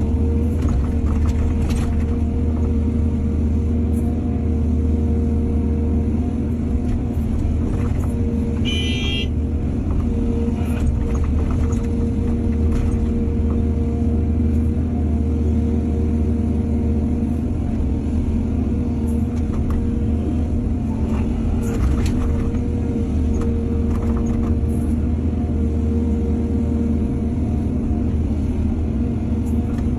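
Excavator diesel engine running steadily under load, with scattered knocks and clanks from the digging work. A brief high squeal about nine seconds in.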